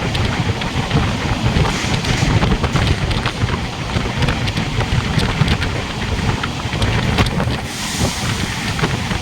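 Moving train: a steady low rumble with rapid rattling clicks, and wind buffeting the microphone.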